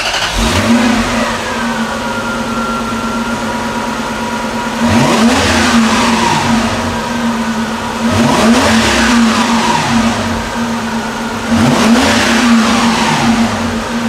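Lexus SC400's 1UZ-FE 4.0-litre V8 running just after being started, idling steadily with the hood open. It is blipped three times, each rev rising and falling back to idle, about three seconds apart.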